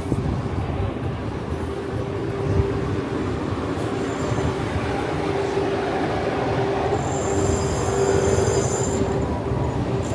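Heavy vehicle running past with a steady drone, and a high metallic squeal for about two seconds near the end.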